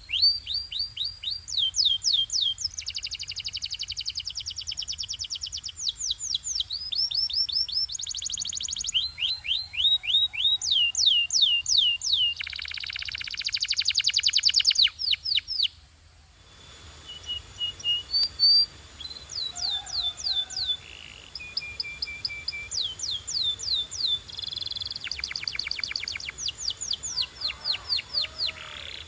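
Domestic canary singing: a string of phrases, each a fast trill of repeated falling notes, some dense and buzzy. There is a brief break about halfway through.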